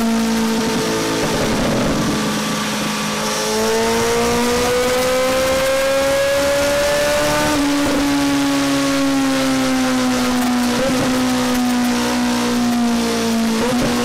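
A 1,250 cc motorcycle engine running under load on a dynamometer for a final check of fuel delivery. The revs climb slowly for a few seconds, then drop back and ease gradually down.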